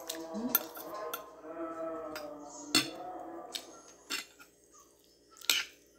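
Metal fork and spoon clinking and scraping against a ceramic plate while eating, about seven sharp clinks, the loudest near the middle and one near the end. Through the first half there is also a drawn-out, wavering, voice-like pitched sound in the background.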